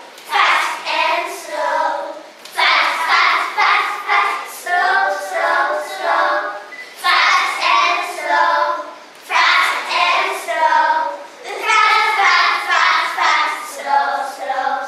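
A group of young children singing a children's action song together in unison, in short phrases with brief breaths between them.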